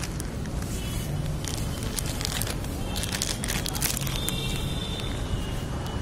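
City outdoor ambience: a steady low rumble of traffic, with a cluster of sharp clicks and crackles in the middle and a few short high tones.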